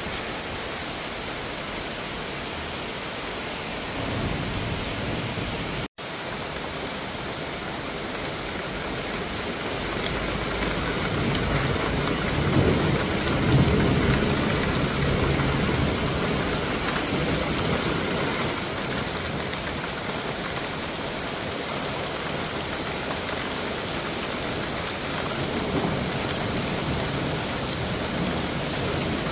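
Heavy cloudburst rain pouring steadily onto trees, pavement and a balcony. A low rumble of thunder swells and fades in the middle. The sound drops out for an instant about a fifth of the way in.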